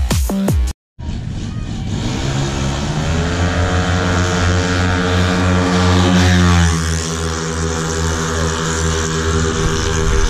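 Racing Yamaha Mio scooters' single-cylinder four-stroke engines at full throttle in a drag run. The engine note climbs steadily for several seconds, drops slightly as the bikes pass, then holds at high revs.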